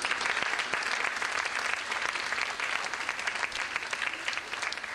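Audience applauding, starting suddenly and slowly thinning out toward the end.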